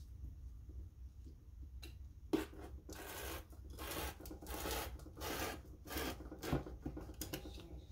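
A rotary cutter's blade rasping through copy paper along the edge of a ruler: a sharp click a couple of seconds in, then a run of six or seven scratchy cutting strokes.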